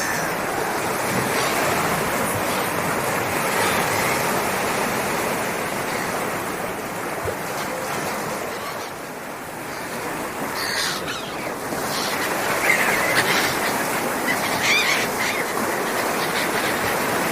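Sea surf: waves washing in a continuous rush that swells and ebbs, easing off for a moment about halfway through.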